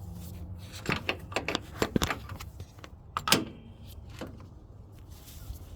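A run of sharp clicks and knocks from something being handled, with the loudest knock a little past three seconds in.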